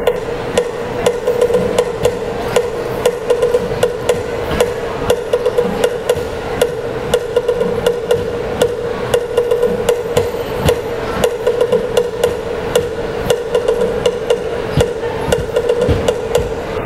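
Traditional dance percussion: quick, steady sharp knocks, several a second, over a sustained ringing tone.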